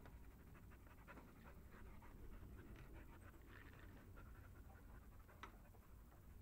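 An English springer spaniel panting, faint quick breaths repeating throughout, with one sharper click about five seconds in.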